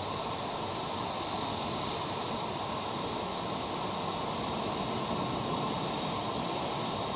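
Steady rushing background noise of wind and surf on an outdoor nest-camera microphone, with no distinct calls or sneezes.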